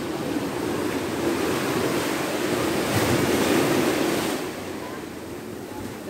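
Small sea waves breaking and washing up the sand. The rush of surf builds over the first few seconds and falls away about four seconds in.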